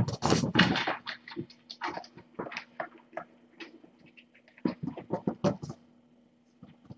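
Kittens moving and playing in their pen: scattered short scratching and rustling sounds, busiest in the first second and again around five seconds in, over a faint steady hum.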